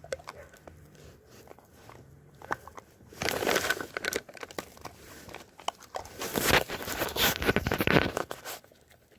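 Dogs biting and crunching on collagen chew sticks: faint scattered clicks at first, then a short bout of loud crunching about three seconds in and a longer one from about six seconds until near the end.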